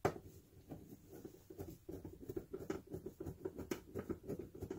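Screwdriver work on plastic car interior trim: fast, irregular scratchy ticks, with a sharp click at the start.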